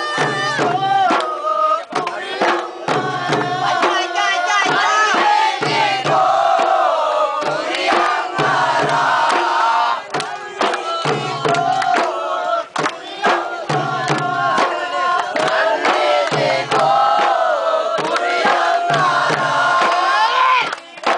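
Bodu beru barrel drums beaten by hand in a steady, driving rhythm while a group of men chant together over them.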